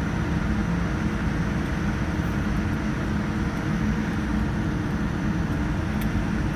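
Steady low rumble of a jet airliner heard from inside the cabin as the plane moves on the ground.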